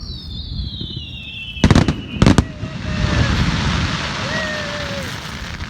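Fireworks going off: a whistle that falls steadily in pitch, two sharp bangs about two seconds in, then a long crackling hiss.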